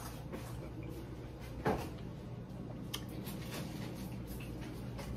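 A single knock a little under two seconds in, then a few faint clicks, over a quiet, steady room hum.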